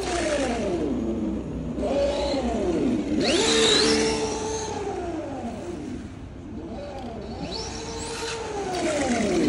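Simulated engine sound from a GT Power Bluetooth sound module on an RC car, rising and falling in pitch several times as the throttle is worked. A brief hissy burst with a squeal comes about three and a half seconds in.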